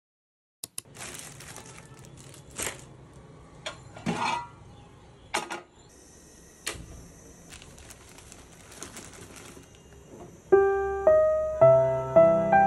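Scattered small clicks, taps and rustles of objects being handled, with a brief hiss midway. Soft piano music comes in about ten seconds in.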